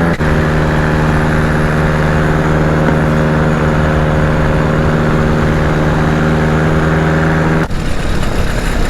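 Paramotor engine and propeller running at a steady pitch in flight. A little before the end the engine tone drops out, leaving only an even rush of air.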